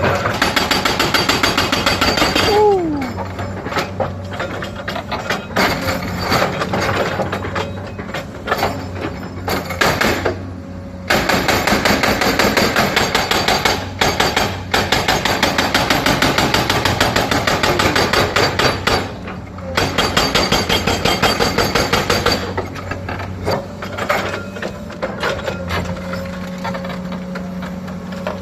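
Excavator-mounted hydraulic breaker hammering rapidly in bursts of a few seconds with short pauses between them, the machine's diesel engine humming steadily underneath. A brief falling squeal comes about two and a half seconds in.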